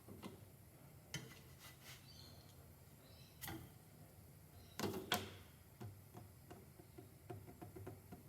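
Kitchen utensils being handled: scattered light clicks and knocks, the loudest a quick double knock about five seconds in, then a run of small ticks.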